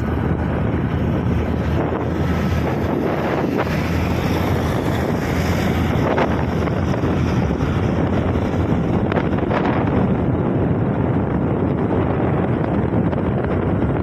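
Steady wind rush buffeting the microphone from travelling along a road at speed, with the rumble of the moving vehicle underneath.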